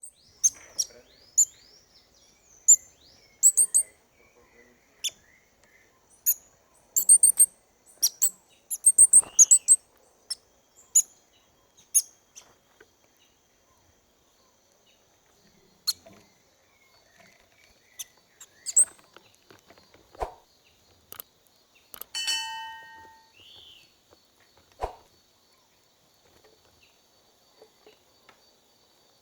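Small birds giving short, very high chirps, many in quick succession over the first twelve seconds and then more scattered, with one longer, lower call about two-thirds of the way through.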